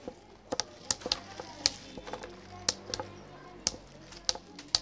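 Small steel-headed hammers cracking pistachio shells by hand on a cloth-covered board: a dozen or so sharp, irregular taps from several hammers working at once.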